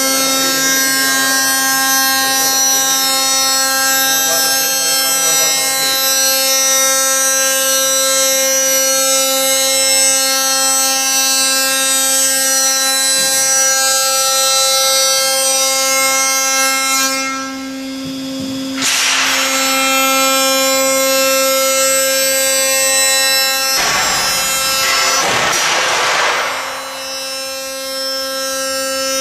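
CNC machining center's spindle and milling cutter running, a steady high buzzing whine as it machines an extruded train-door profile. The whine breaks off twice near the end, about 17 s in and about 24 s in, with a brief hissing rush in its place.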